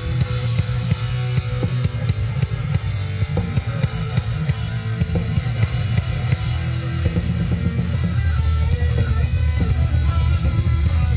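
Rock band playing live: drum kit and guitar in an instrumental passage with no singing.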